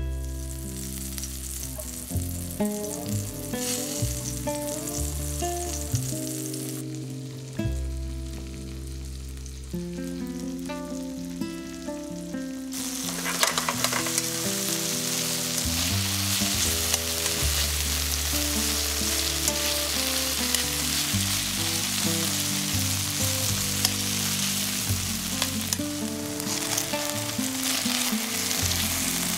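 Beef strips sizzling in hot oil in a frying pan, fainter for a few seconds, then much louder from about thirteen seconds in once the pan is full of meat.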